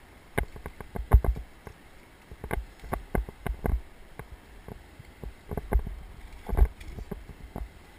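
Kayak and paddle in use on the water, giving irregular knocks and splashes, with the strongest knocks about a second in and again near the end.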